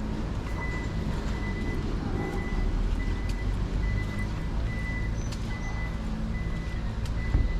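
Street traffic running, with a high electronic beep repeating at an even pace throughout, like a reversing or garage-exit warning beeper. A single sharp knock comes near the end.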